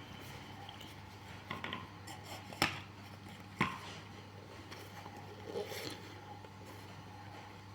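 Workshop handling noises from shoe repair: light clicks, then two sharp knocks about a second apart, then a brief scraping rustle, over a steady low hum.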